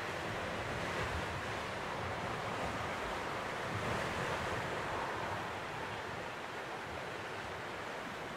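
Sea surf washing on a shore: a steady rushing that swells gently a couple of times, with some wind mixed in.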